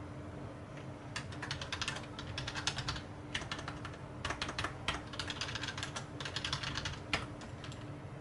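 Typing on a Logitech K480 keyboard: quick runs of key clicks with brief pauses between them.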